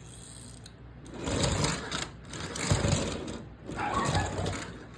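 A Lego train's small electric motor running as the train rolls along plastic track, a rattling clatter that swells up three times.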